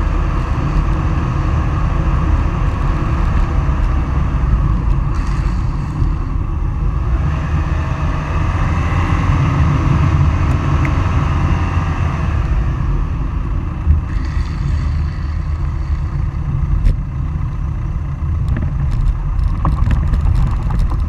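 Steady rumble of wind buffeting the camera microphone and wheels rolling over asphalt at downhill speed, with a few sharp ticks in the second half.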